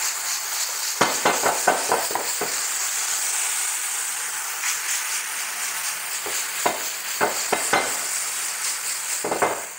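Sliced onions with a splash of soy sauce sizzling hard in a hot skillet over a gas flame. Clusters of quick clicks and scrapes come about a second in, again later, and just before the end as the pan and onions are worked.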